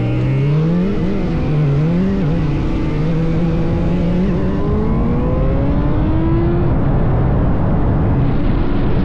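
Sport motorcycle engine revving up and wavering with the throttle, then pulling at a steady pitch. Rushing wind and road noise build over the last few seconds as the bike gathers speed.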